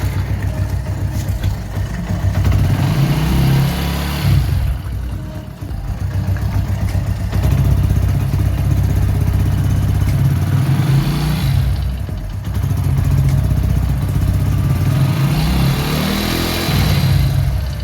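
Motorcycle engine running at idle and revved briefly three times, rising and falling back each time.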